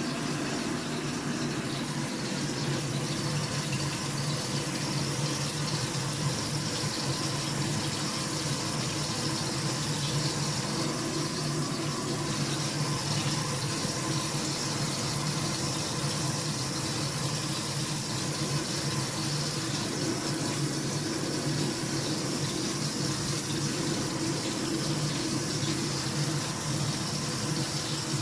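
Water running steadily from a kitchen tap into a sink, with a low steady hum underneath.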